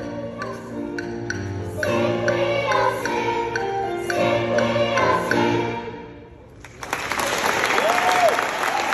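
Girls' choir singing in harmony, the song ending about six seconds in, followed by audience applause.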